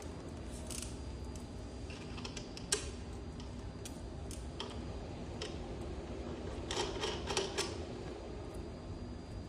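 Scattered light clicks and taps of small parts and hand tools being handled during repair work, with a cluster of quick clicks near the end, over a steady low hum.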